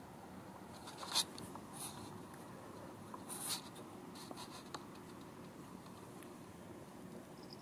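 Cat eating dry cat food: a few short, sharp crunching crackles, the loudest just over a second in and at about three and a half seconds, over a faint steady background.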